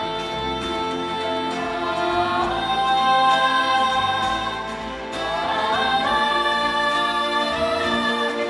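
Live orchestral music with voices singing long, held notes in harmony, the pitch sliding up into new chords about two and five seconds in.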